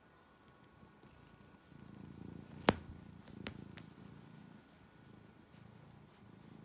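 Domestic cat purring close up, the purr growing louder about two seconds in. A sharp click sounds a little before the midpoint, followed by two fainter ticks.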